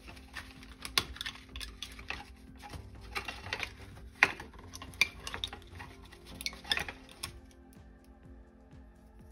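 Close handling of small plastic toy figures and a thin card backdrop: irregular clicks, taps and crinkles of fingernails, figures and bending card, which stop about seven seconds in. Soft background music runs underneath.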